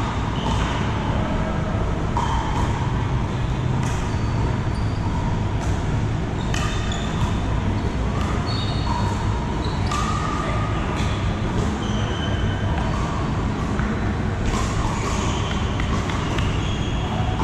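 Pickleball play: paddles hitting hard plastic balls in sharp, briefly ringing pops at irregular intervals, from this court and neighbouring ones, echoing in a large hall over a steady low hum.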